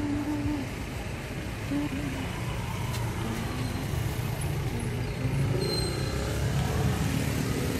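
Steady low rumble of road traffic running throughout, with a single faint click about three seconds in.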